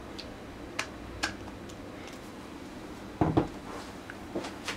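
Handling of a Canon EF 24-70mm f/4L IS USM lens and its plastic caps: two sharp clicks as a cap is fitted, then a louder clatter about three seconds in as the lens is set down on the table, followed by a couple of small clicks, over a steady low hum.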